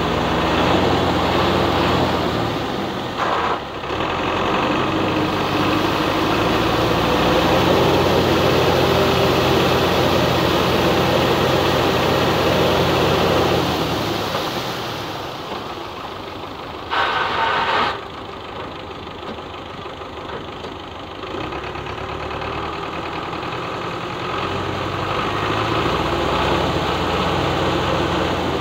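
Belarus tractor's diesel engine running under load as it drags a leveller through a flooded, muddy field, with its rear tyres churning through water and mud. The steady engine drone eases and turns rougher for a stretch past the middle, where one short louder sound stands out, then comes back near the end.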